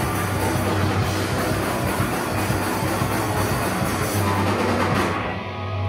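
Hardcore punk band playing live: distorted guitars, bass, and drums with crashing cymbals, loud and dense. A little past five seconds in the drums and cymbals stop, leaving held guitar and bass notes ringing.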